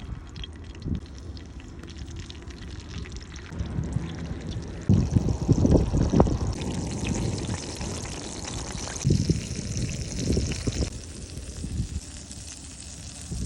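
Water pouring and trickling in a kitchen, a steady hiss. Two clusters of dull knocks and handling sounds come about five seconds in and again about nine seconds in.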